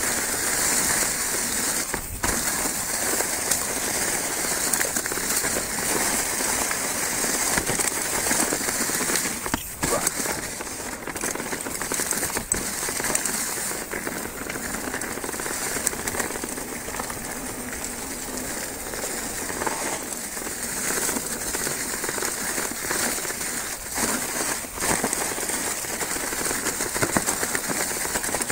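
Mountain bike tyres rolling fast over dry fallen leaves on a dirt trail, a continuous crackling rustle with occasional sharper knocks from the bike over bumps.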